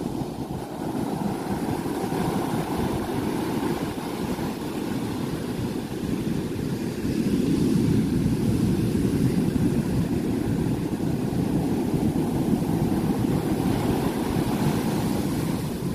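Ocean surf breaking on a sandy beach: a steady rumble of waves that grows louder about seven seconds in.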